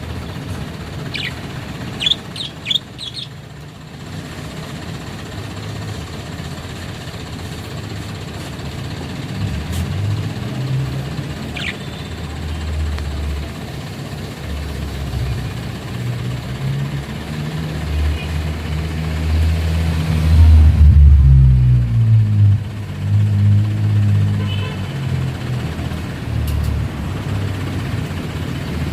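A few quick high bird chirps in the first few seconds and once more near the middle, over a low vehicle engine rumble that builds and is loudest about three quarters of the way through.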